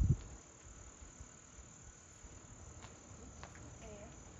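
Steady high-pitched chirring of crickets in an evening insect chorus, with a low thump right at the start and a few faint clicks.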